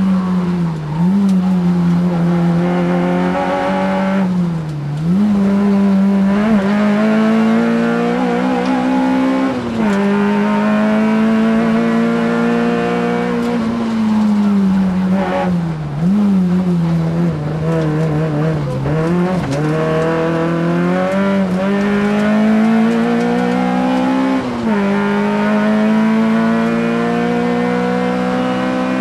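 Peugeot 106 rally car's four-cylinder engine heard from inside the cabin, driven hard. The engine note climbs steadily, then drops sharply every few seconds at gear changes and lifts for the bends.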